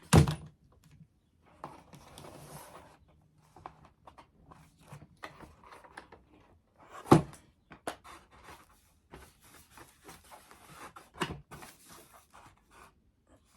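Scattered handling noises of foam board pieces being glued together: light taps, clicks and rustling, with a few sharper knocks at the very start, about seven seconds in and about eleven seconds in.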